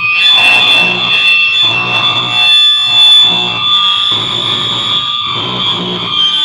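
Harsh noise performance: loud distorted electronic noise with two piercing, steady feedback-like squeals held high above it. A low pulsing layer underneath cuts out briefly about every second and a quarter, giving a lurching rhythm.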